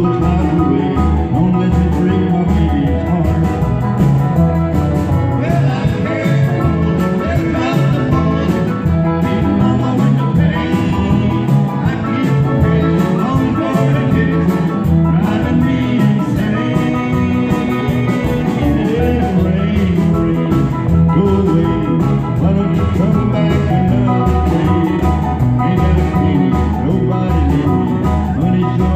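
A country band playing an instrumental break, with a guitar taking the lead over bass and rhythm.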